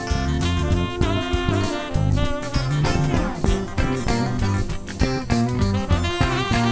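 Background music: an upbeat jazz tune with a steady drum beat, guitar and horns.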